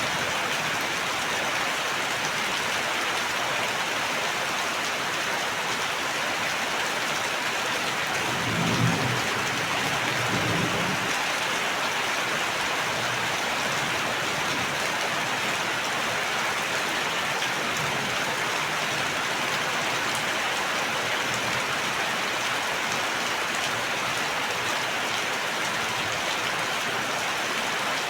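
Steady rain hissing without a break, with a short low rumble of thunder that swells and fades about eight to eleven seconds in.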